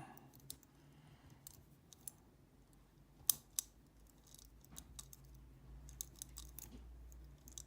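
Sparse small metallic clicks and scrapes of a lever-lifter pick moving the levers of a five-lever padlock while a turning tool holds tension on the bolt; one sharper click about three seconds in.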